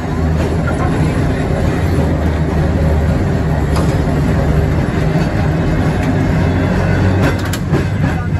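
Vintage electric trolley car running along its track, heard from the motorman's cab: a steady low hum under the rumble of wheels on rail, with a few sharp clicks near the end.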